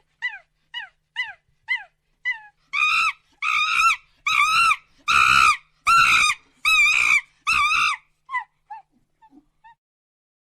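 Monkey calling: a string of short falling yelps builds into a series of about eight longer, loud, wavering calls, each about half a second, then tails off into a few short falling yelps.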